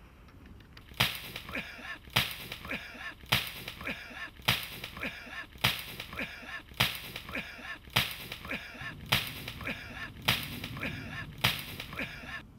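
A sharp crack repeated in an even beat, about once every second and a quarter, ten times, each crack trailed by short chirping tones, like an edited sound loop. It starts about a second in and cuts off at the end.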